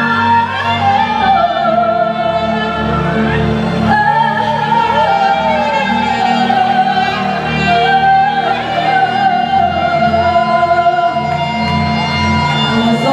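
A woman singing a song live into a microphone over band accompaniment, with long held notes that bend slightly in pitch.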